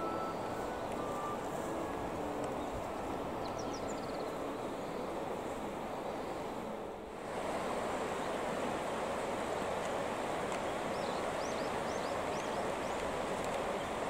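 Steady rush of river current, briefly dipping about halfway through, with a few faint high chirps near the end.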